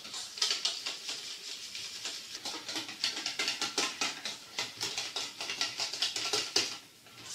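A whisk stirring and scraping quickly against a stainless-steel mixing bowl, a fast run of light clicks and scrapes that stops shortly before the end. The calendula cream is being beaten as it cools and thickens into an emulsion.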